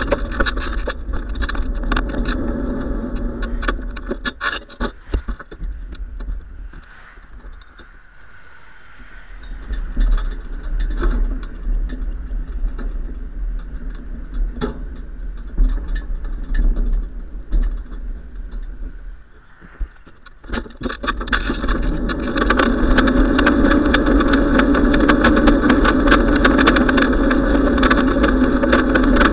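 Wind rushing over a bicycle-mounted camera's microphone, with tyre rumble on pavement and frequent rattling clicks from bumps. It quiets for a stretch in the middle while the bike crosses a railroad track and a road, then grows loud again as the rider picks up speed.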